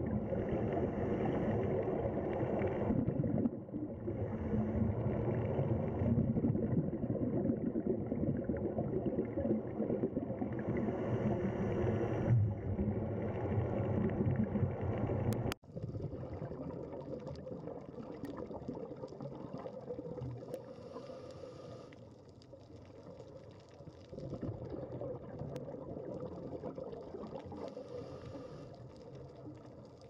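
Muffled rushing and gurgling underwater ambience. It cuts off sharply about halfway and is replaced by a quieter, hissier water ambience.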